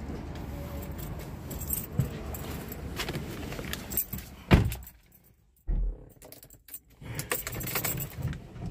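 Metallic jingling, clicks and rustling close to the microphone inside a moving car, over the low hum of the car on the road. A sharp knock comes about four and a half seconds in, followed by a second of near silence.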